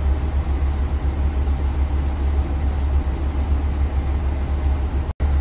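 Semi truck's diesel engine idling, a steady low hum heard inside the cab, with the sound cutting out for an instant near the end.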